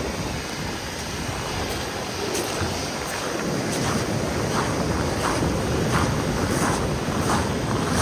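Surf breaking and washing up a shore, with wind blowing on the microphone. It grows a little louder about halfway through, with short hissing flurries of wash.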